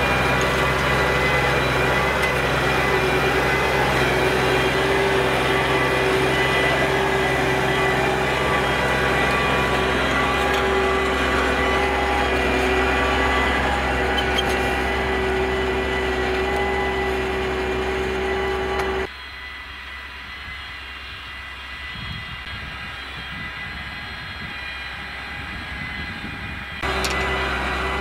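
Case IH Maxxum 140 tractor's six-cylinder diesel engine running steadily under load while pulling a drag harrow. About two-thirds through, the sound drops abruptly to much quieter for several seconds, then comes back just as suddenly near the end.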